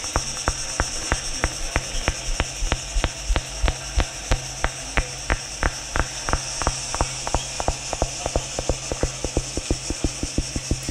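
Rapid, even clicking, about four to six clicks a second, over a steady low hum and high hiss, as part of an electro-acoustic improvised soundscape.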